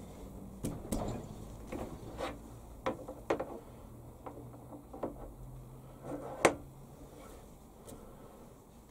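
Scattered light metal clicks and knocks as a shop-made pusher tool holder is handled and adjusted on a lathe's quick-change tool post, the loudest knock about six and a half seconds in.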